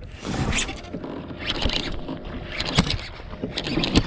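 Close handling noise of fishing tackle: rustling and scraping as a baitcasting reel and its line are handled near the microphone, with several sharp clicks.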